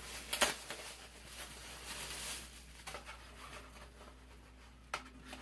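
Handling of a cardboard product box and its packaging: soft rustling and sliding, with a few sharp taps, the loudest about half a second in.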